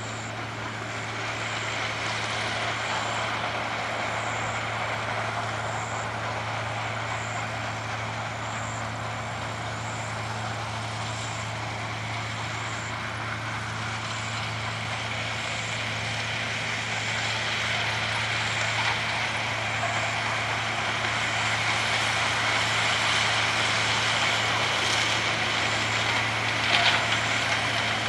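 Sugarcane harvester running steadily at work: a constant low engine hum under a wide wash of mechanical noise, with a faint high tick repeating about every second and a half. A brief sharp knock comes near the end.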